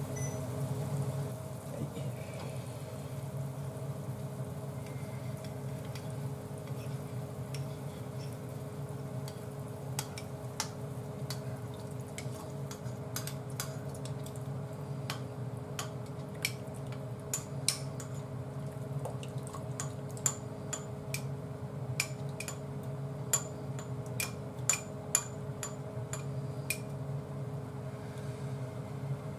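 Steady electrical hum of an induction hob heating a pot of miso soup. From about ten seconds in come many light, sharp clinks and ticks of a utensil against a ceramic bowl and the saucepan as miso is dissolved and stirred in.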